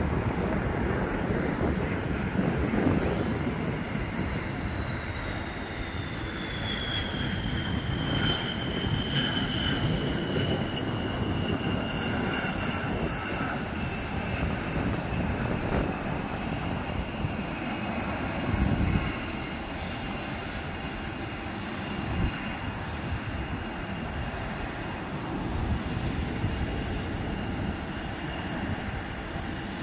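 McDonnell Douglas F-15C Eagle's twin turbofan jet engines on landing and rollout. There is a steady low rumble under a high turbine whine that slowly falls in pitch from a few seconds in until about twenty seconds in.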